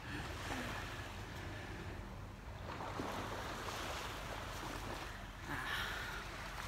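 Steady seaside ambience: a soft hiss of small waves washing on the beach over a low, constant rumble.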